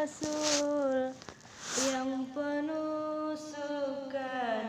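A small child singing long, wavering vowel notes in a high voice, with a short breathy noise about two seconds in.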